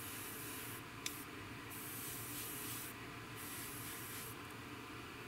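Airbrush spraying in about three short hissing bursts as the trigger is pressed and released, with a sharp click about a second in.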